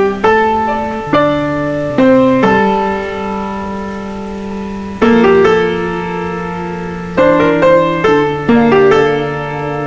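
Background piano music: slow, gentle notes and chords, each struck and left to fade, with a quicker run of notes near the end.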